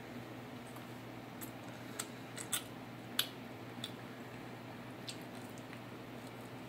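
A person chewing pizza, with scattered soft mouth clicks and smacks, the sharpest a little past three seconds in, over a steady low hum.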